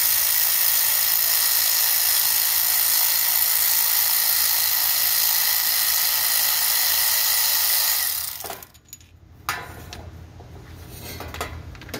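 Power ratchet running steadily as it spins out a starter bolt, stopping about eight seconds in. A small click follows.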